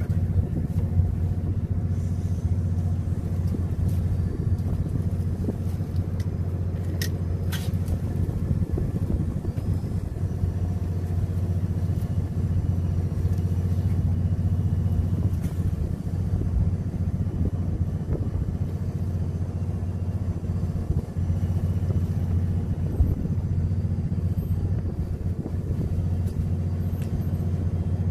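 Steady low drone of a fishing boat's running machinery, with a couple of faint clicks about seven seconds in.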